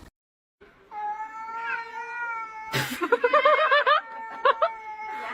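A cat yowling in long drawn-out calls, starting about a second in; the pitch holds steady, then wavers up and down in the middle, with a sharp click about three seconds in.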